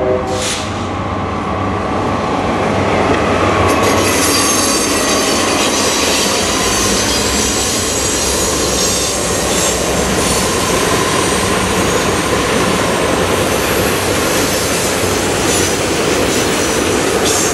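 Pennsylvania Railroad E8 diesel-electric passenger locomotives passing close by, each powered by twin EMD 567 V12 diesel engines. Their engines run under power and the wheels roll over the rails. The passenger cars follow, rolling past in a steady, loud stream of rail noise.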